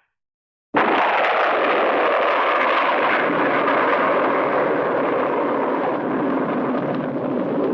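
Cartoon rocket thruster sound effect: a steady, loud rushing noise that cuts in abruptly just under a second in and holds, easing off only slightly.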